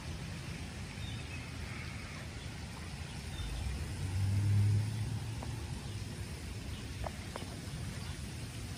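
Low rumble of passing road traffic, swelling as a vehicle goes by about four seconds in, over the faint steady hiss of light rain.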